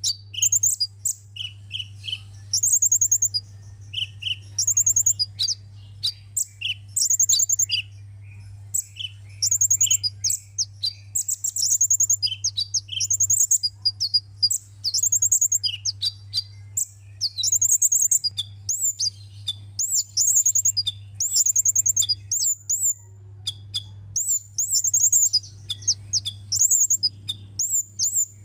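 Sunbird singing: short, high-pitched trilled chirps repeated about once a second, over a steady low hum.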